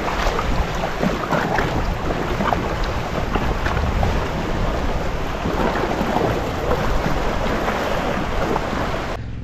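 Wind buffeting the microphone over open sea, a heavy steady rumble with sea water splashing and sloshing, cutting off just before the end.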